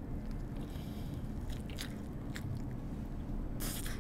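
A person biting into and chewing a cheese-filled toast sandwich, with a few short crackles in the middle and a louder burst of mouth noise near the end.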